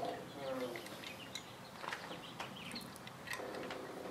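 Faint scattered clicks and taps of small parts being handled as a control circuit board is pressed onto the inverter of a Tesla drive unit.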